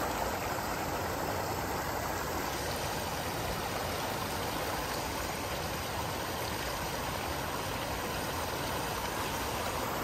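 Steady rush of shallow river water flowing over rocks.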